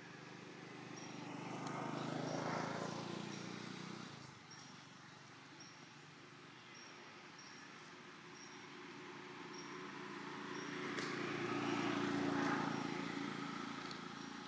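Two motor vehicles passing one after the other, each engine hum swelling up and fading away. The first passes about two and a half seconds in, the second near the end.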